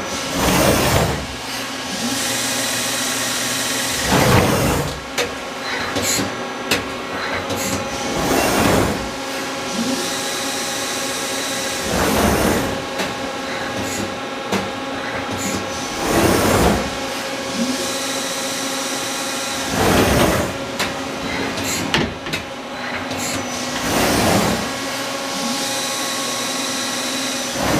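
Hwacheon Hi-ECO 21HSBB CNC lathe running with a steady hum. About every four seconds a swell of sliding, rattling noise comes from its telescoping way covers as the axis travels back and forth.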